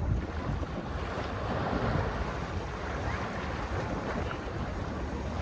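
Sea waves washing onto the shore in a steady wash, swelling slightly about two seconds in, with wind buffeting the microphone in a low rumble.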